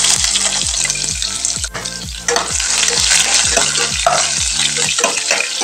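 Sliced onions, green chillies and garlic sizzling as they hit hot mustard oil and fry, stirred with a metal spatula; the hiss eases briefly about two seconds in, then picks up again. A steady beat of background music runs underneath.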